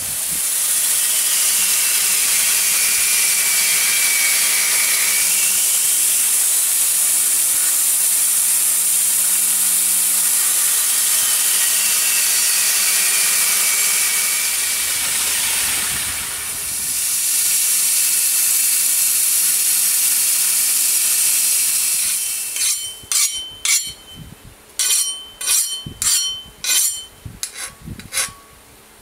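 Homemade belt grinder grinding the edge of a steel axe head cut from an old circular saw blade: a loud, steady, hissing rasp of abrasive on steel that eases off briefly about two-thirds of the way through. The grinding stops near the end and gives way to a string of sharp metallic clicks and knocks.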